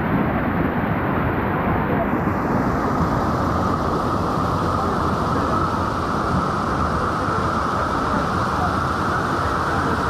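Steady rush of river water pouring down, an even, unbroken noise.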